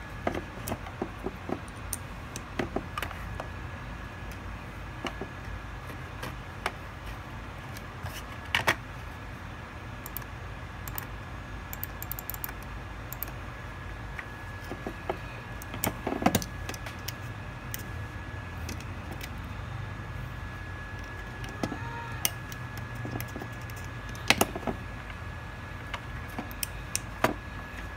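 Irregular sharp clicks of a computer mouse and keyboard being worked at a PC, some in quick little clusters, over a steady low hum and a faint steady high whine.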